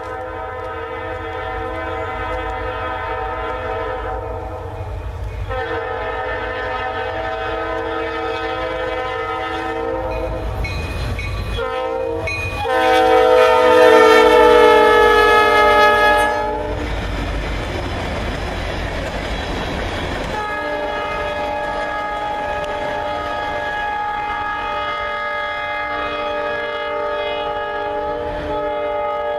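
Freight train locomotive horn sounding in long blasts at a grade crossing, over the low rumble of the engines and wheels. It grows loudest and its pitch sags as the locomotives pass close by, then gives way to about four seconds of engine and rail rumble before the horn chord sounds again as the train moves on.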